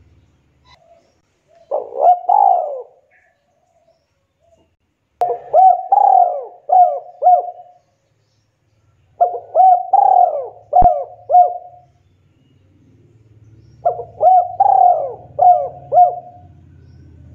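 Spotted dove (tekukur) cooing. There is a short coo about two seconds in, then three phrases of about five coos each, roughly four seconds apart.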